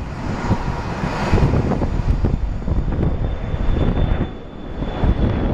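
Embraer 175 regional jet's two GE CF34-8E turbofans running at takeoff thrust as it lifts off: a loud, uneven rumble, with a faint steady high whine coming in about halfway through.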